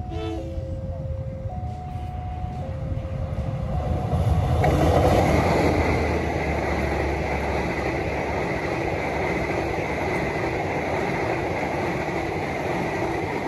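Level-crossing warning alarm alternating between two tones for the first few seconds, then the KA Logawa diesel-hauled passenger train passing close by, its steady rolling noise taking over from about four and a half seconds in.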